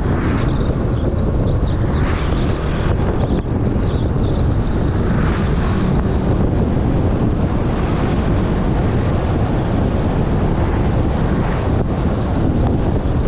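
Steady wind buffeting on the microphone over the rumble of a moving vehicle, with no distinct events.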